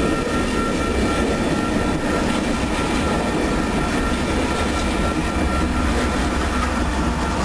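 Empty coal hopper cars of a freight train rolling past, steel wheels running on the rails with a steady thin squeal. Near the end a diesel-electric locomotive at the rear of the train passes, its engine rumble growing stronger.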